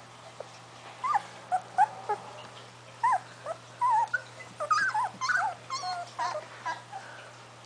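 Three-week-old puppies whimpering and squeaking: a run of short, high, wavering cries that starts about a second in and comes thick and overlapping through the middle.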